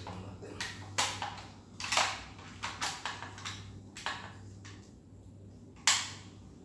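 About six sharp clacks and rustles, roughly one a second, of objects being handled and set down close to the microphone, the loudest near the end, over a faint steady low hum.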